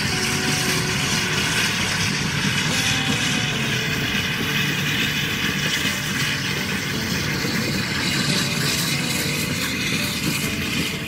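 LSWR T3 class 4-4-0 steam locomotive No. 563 working past with a train of coaches: a loud, steady rush of exhaust and wheel and rail noise.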